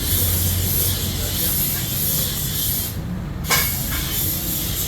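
Steady hiss over a low hum of workshop machinery, with a single knock about three and a half seconds in.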